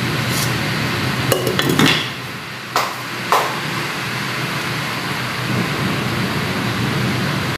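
Broth boiling in a stainless-steel pot on the stove, a steady bubbling hiss. A few sharp metal-and-glass clinks in the first few seconds as a glass lid is set on the pot.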